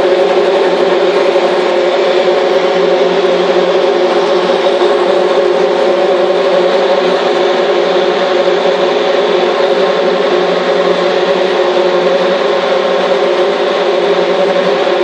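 Open-wheel race cars' engines idling on the starting grid, a loud, steady drone that holds one pitch without revving.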